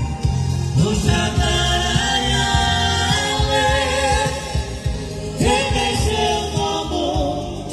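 Live Romani music: male singing through microphones over electronic keyboard accompaniment with a steady bass and drum beat. One sung phrase comes in about a second in and another about five and a half seconds in.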